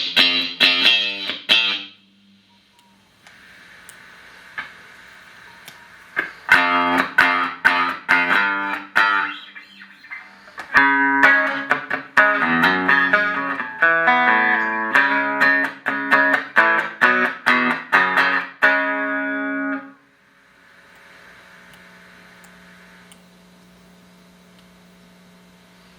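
Electric guitar played through a Boss GE-7 equalizer pedal into Roland JC-120 amplifiers: picked notes and chords in three phrases, the last ending abruptly about 20 seconds in. Steady amplifier hum and hiss fill the gaps and the end.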